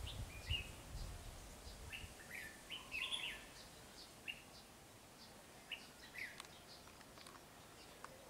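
Red-whiskered bulbul calling: short, faint chirps scattered through, some in quick pairs. Over the first two seconds a low rumble of camera handling noise runs under them, then fades.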